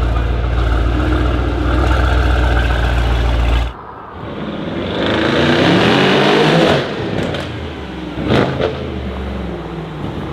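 Mercedes-AMG E63 S twin-turbo V8 with a decat exhaust idling with a deep, steady rumble in a garage. After a sudden cut about four seconds in, it pulls away with the engine note rising under acceleration, then drops as it comes off the throttle, with a few sharp exhaust pops.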